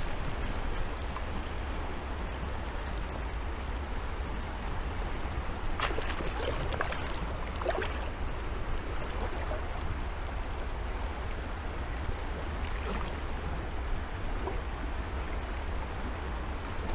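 Steady rush of flowing river water, with a low wind rumble on the microphone. A few short sharp sounds come about six to eight seconds in.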